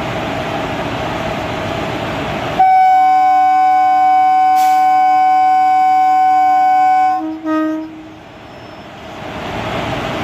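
WAP-4 electric locomotive sounding its horn in one long steady blast of about four and a half seconds, ending in a short second note. Before and after the horn the locomotive's steady running hum is heard, with a faint whine.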